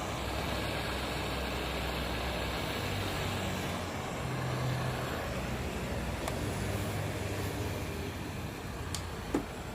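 A motor vehicle's engine running steadily, a low hum under a constant noisy background, with a couple of sharp clicks near the end.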